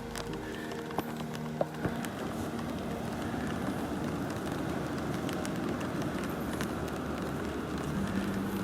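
Raindrops ticking on a plastic Frisbee held over the phone's microphone, scattered sharp taps over a steady hiss of rain and surf.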